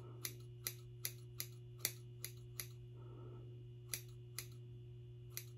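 Hair-cutting scissors snipping the fringe of a synthetic wig, point-cutting upward into the bangs: a quick run of small crisp snips, two or three a second, a pause of about a second past the middle, then a few more.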